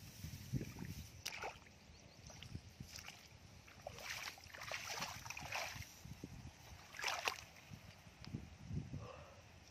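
Bare feet wading in shallow muddy water among cut rice straw: irregular soft splashes and rustles, with a few clearer bursts about a second in, around four to five and a half seconds, and near seven seconds.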